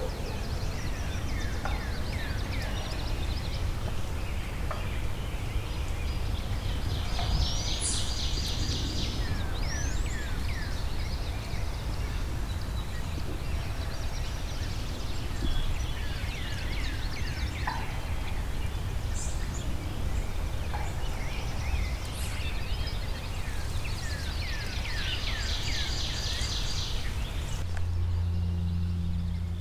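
Wild turkey gobbling twice, a rapid rattling call about a quarter of the way in and again near the end, among songbirds chirping over a steady low wind rumble. Near the end the birdsong drops away and a steady low hum takes over.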